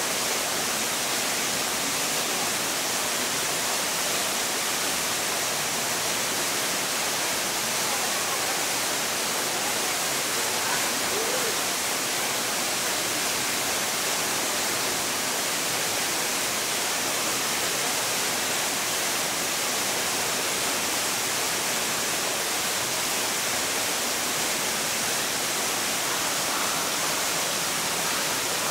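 Steady, even rush of falling water, like heavy rain or a cascade, unchanging throughout.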